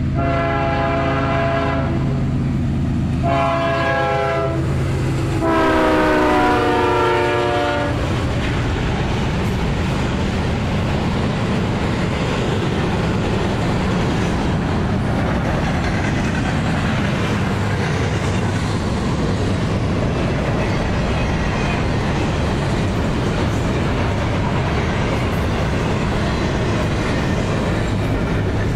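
CSX diesel locomotive's air horn sounds three blasts over the low drone of its engine, the third blast dropping in pitch as the engine passes. Then the double-stack container cars roll by with a steady rumble of wheels on rail.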